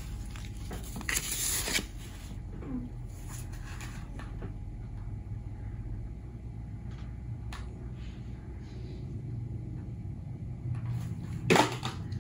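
Rustling and crinkling of a Hot Wheels blister-card package being handled, with a louder rustle about a second in and a short sharp crackle near the end, over a steady low room hum.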